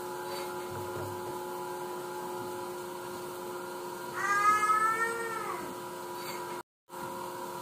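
A single drawn-out, high-pitched call about four seconds in, lasting about a second and a half and sliding slightly up and then down in pitch, over a faint steady hum.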